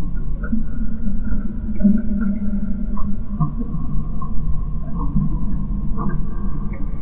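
Dark, otherworldly ambient soundscape that sounds as if heard underwater: a deep, steady low rumble with thin held tones above it and short blips scattered through it.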